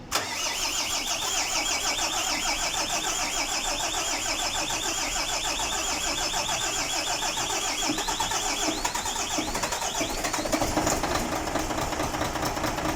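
A freshly overhauled Mercedes-Benz Actros 2040 diesel engine starting for the first time. It catches suddenly and then runs steadily with a fast, even rhythm.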